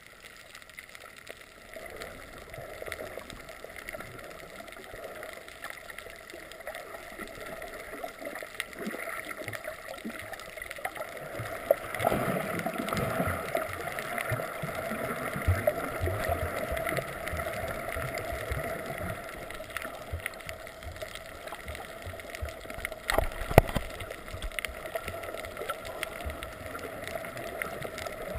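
Muffled underwater sound picked up through a GoPro's waterproof housing: water gurgling and sloshing around the camera, louder from a little before halfway. One sharp knock about five seconds before the end.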